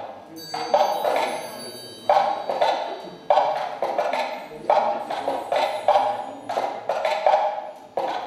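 A series of sharp percussive knocks, irregularly spaced about half a second to a second apart, each ringing out briefly before the next.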